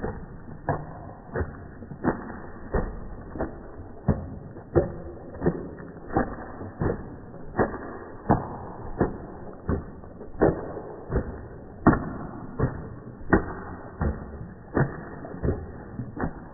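Shar pei shaking itself, slowed down: its flapping ears and loose skin give a regular series of deep slaps, a little more than one a second.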